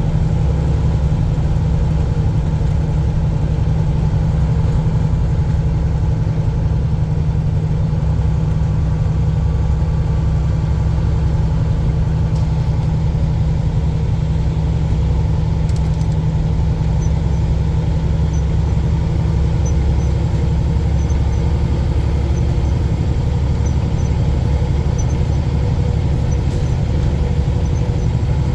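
Semi-truck's diesel engine and road noise heard from inside the cab, a steady low drone at cruising speed.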